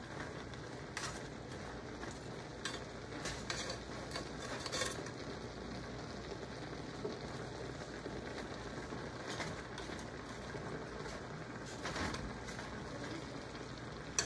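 A cooking spoon stirring taro leaves and onion in a hot metal pot, with scattered scrapes and light knocks of the spoon against the pot over a steady low hiss from the cooking food.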